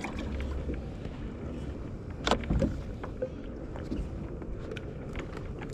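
Small waves slapping against the hull of a plastic fishing kayak, with scattered knocks and splashes, the loudest a little over two seconds in, over a steady low wind rumble on the microphone.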